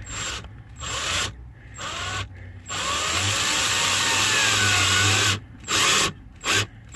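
Power drill driving a self-tapping screw: three short trigger bursts, then a steady run of about two and a half seconds, then several quick short bursts as the screw seats.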